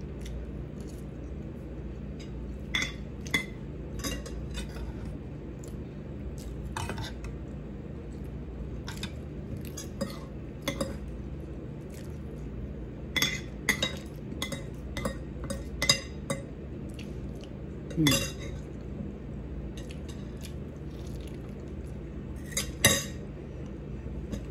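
Metal spoon and fork clinking and scraping against a cooking pan as food is scooped up to eat: scattered short clinks, loudest about three-quarters of the way through and near the end, over a steady low hum.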